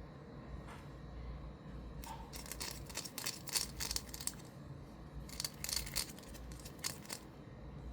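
Toy packaging being opened by hand: two spells of crinkling, tearing and clicking, the first about two seconds in and the second about five seconds in.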